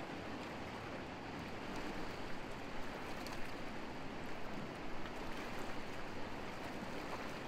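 Steady rush of fast-flowing river water, an even hiss with small flickers in level.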